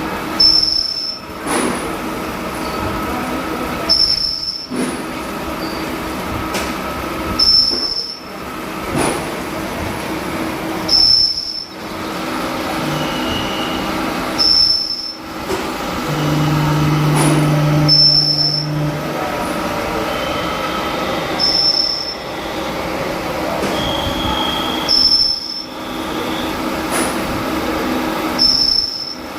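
CNC machine cutting metal: a steady mechanical grind with a squeal, repeating in a cycle about every three and a half seconds, each cycle broken by a brief pause and a short high whine.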